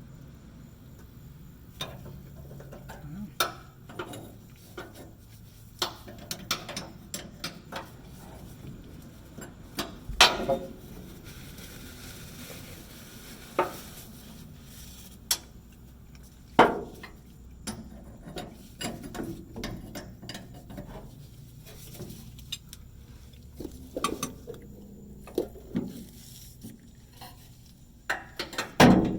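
Irregular metallic clinks, clicks and knocks of hand tools and metal parts being handled and set down while fitting a fuel pump assembly, with a few louder clanks.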